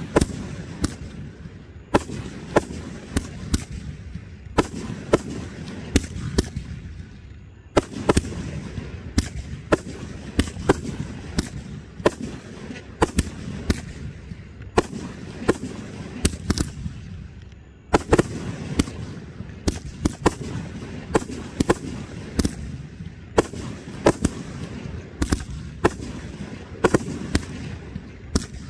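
Aerial fireworks display: a rapid, irregular string of shell bursts going off, often several bangs a second, with crackle filling the gaps. The barrage dips briefly and surges back in, around 8 and 18 seconds in.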